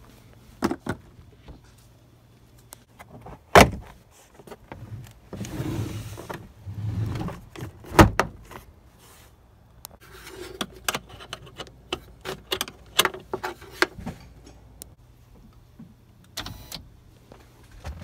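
Plastic trim clips and the inner trim panel of a Toyota Sienna's sliding door being pried and worked loose: scattered sharp clicks and knocks with stretches of scraping and rustling, over a faint low hum at the start and near the end.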